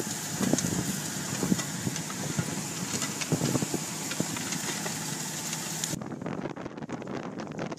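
Large tractor pulling a Degelman disc tillage implement through stubble: the engine runs under load, with irregular clunking and rattling from the discs working the soil. About six seconds in the sound abruptly turns duller.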